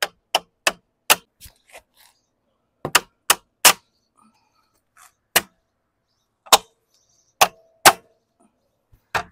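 Rubber mallet tapping a wheel cover onto a car's wheel, popping its retaining tabs into place: about fifteen sharp knocks in irregular clusters, a few with a short ring.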